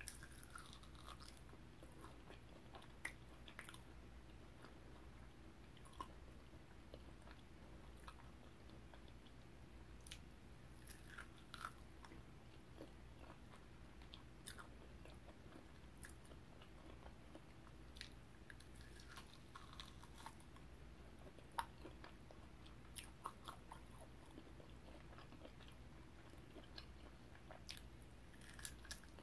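Faint, close-miked sounds of biting and chewing sauce-glazed BBQ pork ribs: scattered short, sticky mouth clicks and smacks over a low steady hum.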